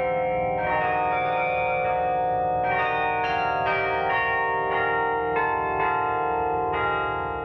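Tower carillon played by hand from its keyboard: a slow melody of struck bell notes, a new strike every half second to second, each bell ringing on under the next.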